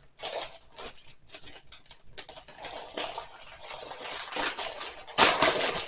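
Paper rustling with small clicks as a strip of sticker labels is handled, with a louder rustle about five seconds in.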